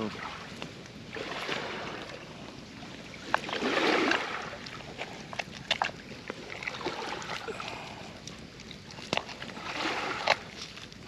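Rushing wind and surf noise that swells loudest about four seconds in, with scattered light clicks and knocks as lamb is served out of a Dutch oven.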